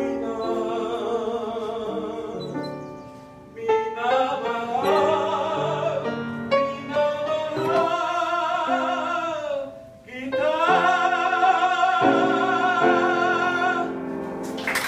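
A singer with a wide vibrato and an upright piano performing a slow Filipino love song, closing on a long held note.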